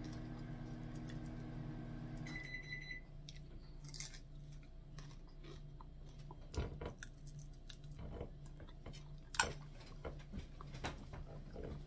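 A kitchen appliance hums steadily, cuts off about two seconds in, and gives one short electronic beep. After that come scattered small clicks and taps of eating, with a couple of sharper taps in the second half.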